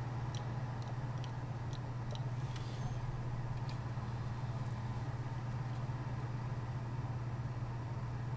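Steady low hum with a few faint light ticks in the first few seconds, from small handling of a glass cement bottle, its brush cap and plastic model parts.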